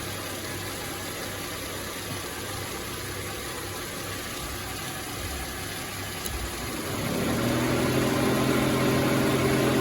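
Car engine idling steadily. About seven seconds in, a louder steady hum starts and holds: the electric thermo fans switching on with the new relay fitted. This points to the relay not being the fault.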